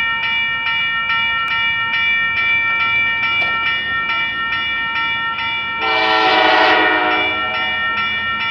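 Western-Cullen-Hayes Type 3 electronic crossing bells ringing continuously, a fast steady ding about two to three times a second, while the crossing gates lower. About six seconds in, the approaching freight locomotive's air horn sounds one long blast of about a second and a half, louder than the bells.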